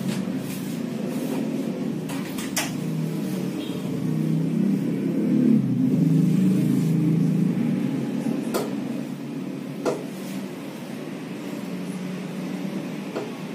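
Low engine rumble of road traffic, swelling around the middle, with a few short sharp clicks over it.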